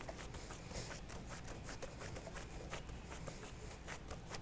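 Faint, soft pats and squishes of gloved hands pressing and shaping a large raw ground-beef patty, many small irregular taps, over a low steady hum.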